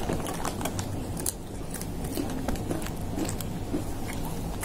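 A cat chewing crisp banana chips: a run of quick, irregular crunches and crackles.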